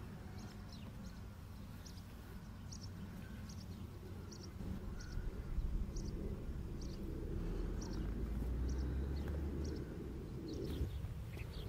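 A bird chirping again and again, short high notes about twice a second, over a low rumble that swells toward the middle.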